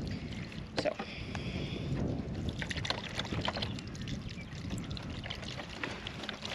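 Chicken broth pouring in a thin stream from a carton into a crock pot, over a steady low rumble of gusty wind on the microphone.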